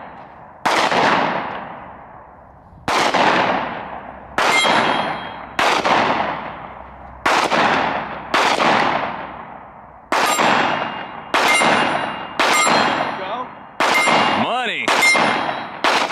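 Handgun fired slowly, about a dozen single shots one to two seconds apart, each with a long echo. Several shots are followed by a short metallic ping of steel targets being hit.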